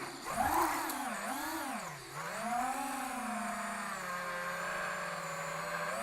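Brushless FPV drone motor whining under changing throttle: the pitch swings up and down a few times, then holds a steady whine that sags slowly. This is a motor suspected of being faulty.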